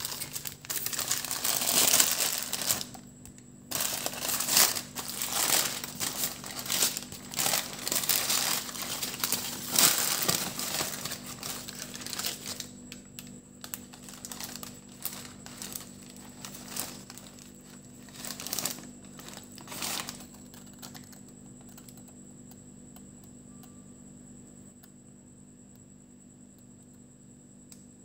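Paper sandwich wrapper crinkling and rustling as a sub roll is handled and unwrapped. The crinkling is dense for about the first twelve seconds, then comes in scattered rustles that die away about twenty seconds in.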